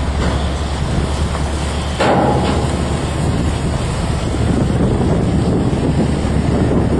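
Wind buffeting the microphone over the low rumble of a heavy multi-axle transporter trailer rolling past on its many tyres, the noise growing suddenly louder about two seconds in.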